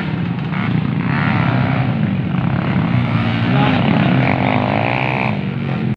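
Motorcycle engines revving and running at the start of a dirt-track race, their pitch rising and falling, with voices from the crowd mixed in. The sound cuts off abruptly at the end.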